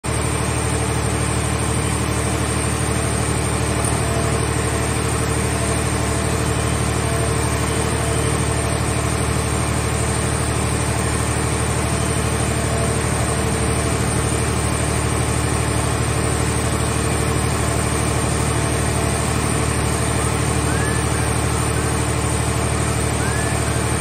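Scrap car shell baler's power unit (engine and hydraulic pump) running steadily, a constant low hum with no change in speed.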